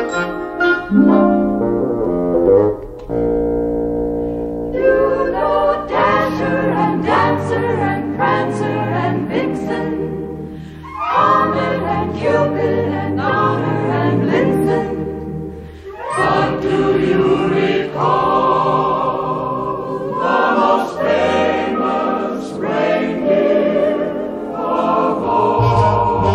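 Music: a choir singing with instrumental accompaniment.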